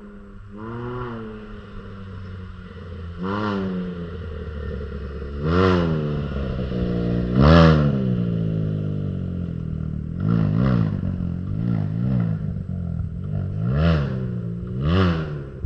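Can-Am Ryker 900's three-cylinder engine through an aftermarket RLS Predator Series exhaust, revved in a series of about nine throttle blips, the note rising and falling each time, with several quick blips in a row past the middle.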